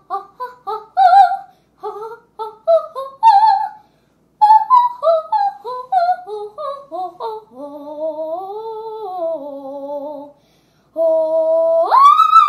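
A young girl singing solo in an operatic style: a run of quick, ornamented notes, then slower gliding notes. After a brief pause she holds a note and, near the end, leaps up to a high sustained note with vibrato, the closing cadenza of the song.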